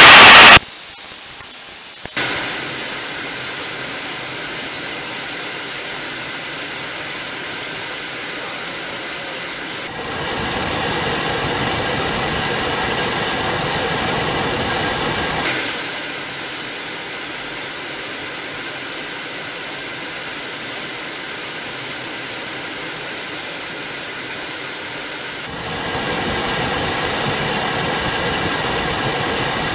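Steady engine whine and airflow noise inside the cockpit of an L-39 jet, its single turbofan running; the noise grows louder for about five seconds twice, midway through and near the end. It opens with a very loud burst of static lasting under a second.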